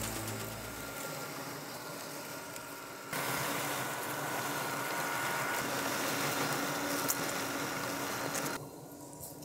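Mammotion Luba 2 AWD robotic mower running across grass: a steady electric motor whine over a hiss of cutting. It gets louder about three seconds in and drops again near the end.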